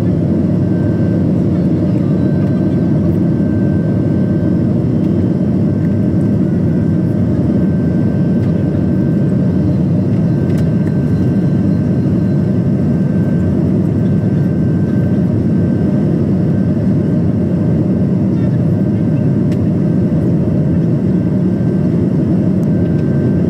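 Steady roar of jet engines and rushing air inside an airliner cabin as it climbs after takeoff, with a faint steady whine above it.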